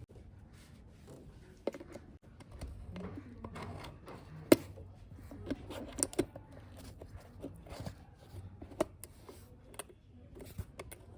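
Small plastic toys being handled and set down: scattered clicks and taps with light rustling, the sharpest click about four and a half seconds in.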